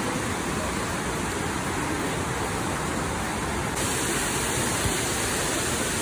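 Steady rushing of water cascading over the rocks of YS Falls, a seven-tiered waterfall.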